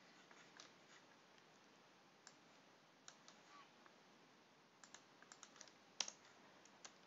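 Faint computer keyboard keystrokes in near silence: a few scattered clicks, then a quick run of keystrokes about five seconds in and a single louder key press about six seconds in.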